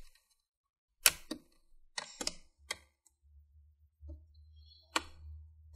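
Plastic snap clips of a laptop's bottom cover popping free as a guitar pick is twisted along the seam: a run of sharp clicks, a pause, then one more click near the end.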